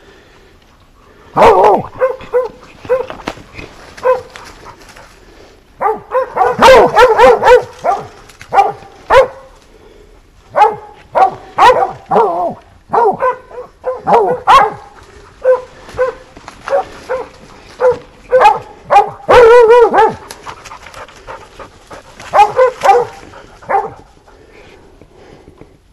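Hunting dog barking repeatedly in the brush, with single barks and quick runs of barks, the busiest runs about six seconds in and near twenty seconds.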